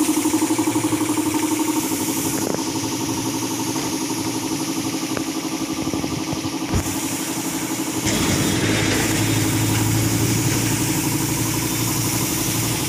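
Air compressor running steadily with a rapid, even pulse, feeding the air line for spray painting. It has a single knock about seven seconds in, and about eight seconds in it grows louder, with a deeper hum underneath.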